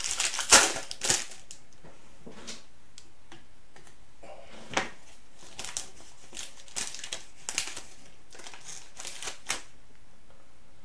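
Foil trading-card pack wrapper crinkling as it is torn open and peeled off. It is loudest in the first second, then comes in scattered sharp crackles.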